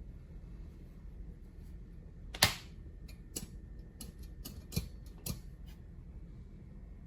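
Sharp clicks and knocks from a Lifetime 4428 plastic-and-steel folding table being handled. One loud knock comes about two and a half seconds in, followed by half a dozen lighter clicks over the next three seconds.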